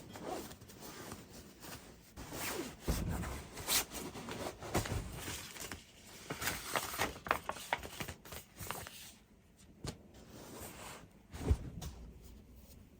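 Small handling sounds: scattered light clicks, rustles and scrapes, with one louder knock near the end.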